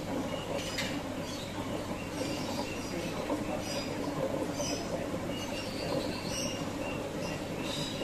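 Steady rush of flowing water with small birds chirping and squeaking over it in short, frequent calls.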